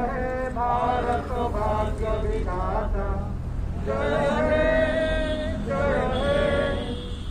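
A group of men singing together in unison, in slow phrases with long held notes.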